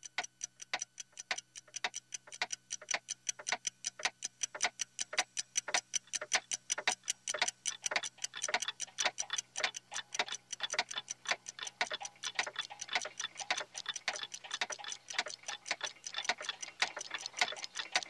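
Many clocks ticking together. The ticks start out sparse, about three a second, and grow steadily denser and louder as more ticks pile in.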